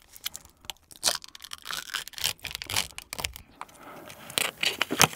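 Close-miked crinkling and tearing as the foil lid of a plastic dipping-sauce cup is peeled off, a run of small irregular crackles. Near the end come a couple of sharper snaps as a sauce-dipped piece of fried chicken is bitten.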